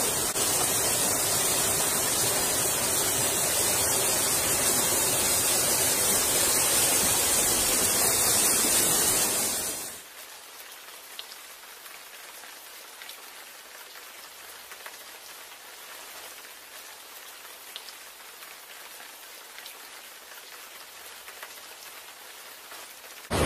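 Steady, loud noise of heavy rain and fast-flowing floodwater in a flooded street. About ten seconds in it cuts abruptly to a much quieter, thin hiss of water with faint scattered ticks.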